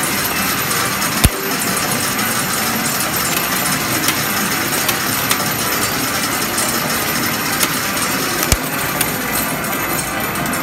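Medal pusher game running with a steady mechanical din and many small metallic clicks of medals clinking. Two sharper clicks stand out, about a second in and again about seven seconds later.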